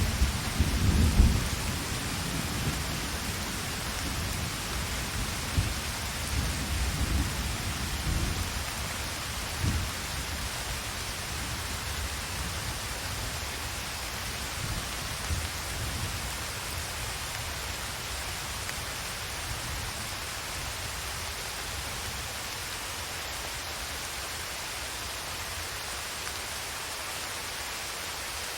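Heavy rain falling steadily, with low rolling thunder rumbles during the first ten seconds or so that die away, leaving only the steady rain.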